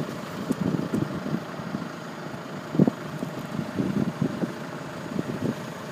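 Diesel engines of several telehandlers running together while they hold a self-propelled crop sprayer lifted between their booms: an uneven low rumble with irregular surges, the strongest about three seconds in.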